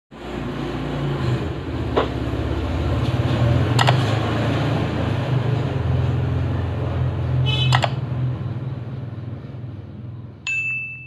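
Sound effects of a subscribe-reminder animation: a steady low hum with a few sharp clicks, then a single bell ding about ten and a half seconds in, ringing for about a second.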